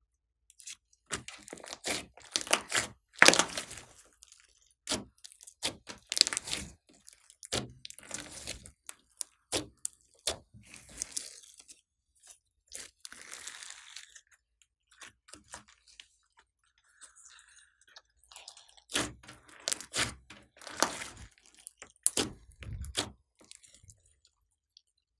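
Hands stretching, squeezing and kneading a large mixed slime studded with small beads: irregular sharp crackles and pops in clusters, with a sparser stretch midway.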